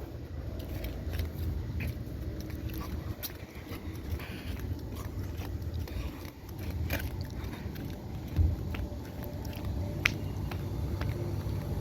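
Steady low hum of outdoor air conditioner condenser units running, with scattered crunching and scraping clicks.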